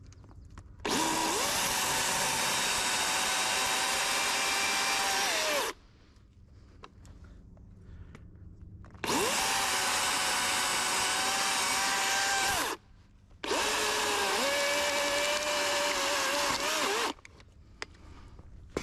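Cordless DeWalt electric chainsaw cutting limbs off a felled tree in three runs. Each run starts with a rising whine as the chain spins up and cuts off abruptly when the trigger is released, with no idle between. The pitch wavers during the third run as the chain bites.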